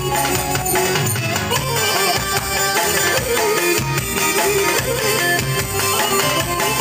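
Čoček, Balkan Romani dance music, playing with a steady driving beat of percussion under a melodic line.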